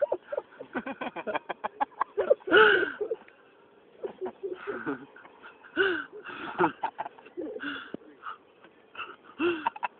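Hard, uncontrollable laughter: squeaky rising-and-falling giggles and a rapid string of short pulses about a second in, with a brief pause near the middle.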